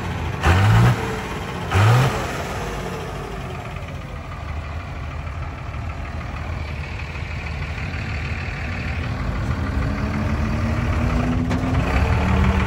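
A vehicle engine revved in two quick blips in the first two seconds. Then a steady engine rumble slowly rises in pitch and grows louder, as a vehicle accelerates or comes closer.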